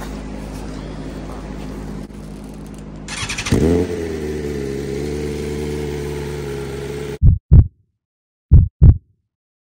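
Sport motorcycle engine running at idle. A few seconds in, a motorcycle with an Akrapovic exhaust is started: brief cranking, then it catches with a quick flare in revs and settles into a steady idle. Near the end come four short, deep booming hits in two pairs, a logo sound effect.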